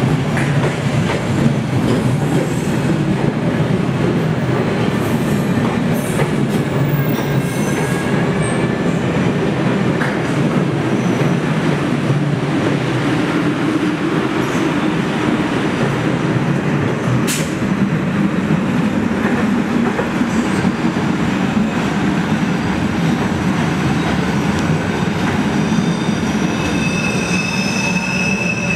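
MBTA Red Line subway train rolling slowly along the platform: a loud, steady rumble of motors and steel wheels on rail. Near the end a high, steady wheel squeal sets in.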